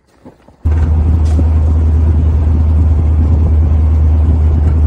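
Engine and road noise inside a moving truck's cab: a loud, steady rumble with a strong low drone. It cuts in abruptly about half a second in, after a short quiet stretch.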